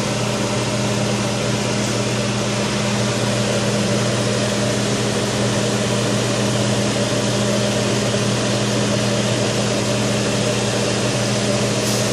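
Steady electric fan running: a constant motor hum under an even rush of moving air.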